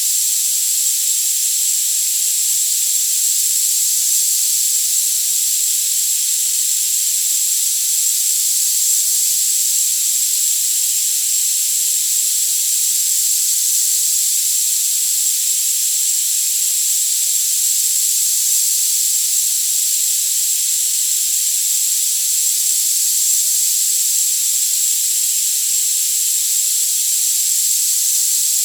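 Tinnitus sound-therapy noise: a steady, unchanging high hiss with all the low end cut away, and a thin high-pitched tone held constant inside it.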